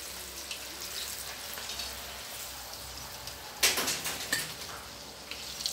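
Wontons deep-frying in hot oil in a wok: a steady sizzle with small crackles as they are stirred. About three and a half seconds in, a sudden loud scrape and knock as the ladle scoops them out of the wok.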